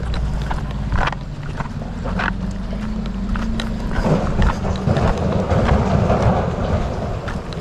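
Footsteps clacking and crunching over loose, dry river cobbles, with a man singing low to himself under them.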